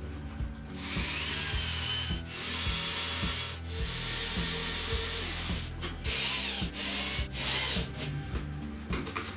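Power drill driving screws into wood, in three runs of about one and a half to two seconds each, then two short bursts near the end. Background music plays underneath.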